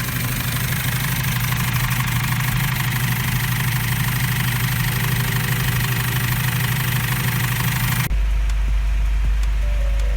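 Cummins ISF 2.8 four-cylinder turbodiesel idling steadily. About eight seconds in the sound cuts abruptly to a deeper, steadier hum.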